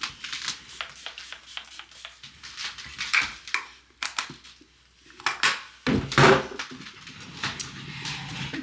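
Handling noise: a string of irregular clicks and clatters of small hard objects being picked up and set down, with a louder rustling knock about six seconds in.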